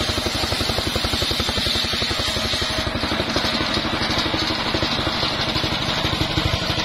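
Engine driving a large circular saw bench, running steadily with an even, fast pulse.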